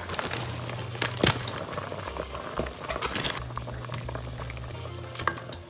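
Pot of soup bubbling at the boil, with a spoon stirring through it and a few sharp knocks against the pot, the loudest about a second in.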